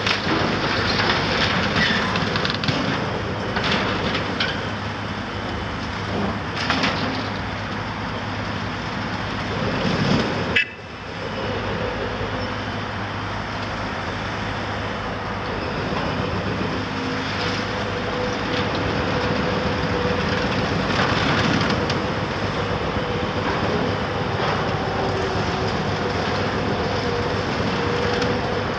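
Caterpillar 374F excavator's diesel engine running steadily under load, with repeated crunches and crashes of breaking concrete and falling demolition rubble. The sound drops out suddenly for a moment about ten seconds in.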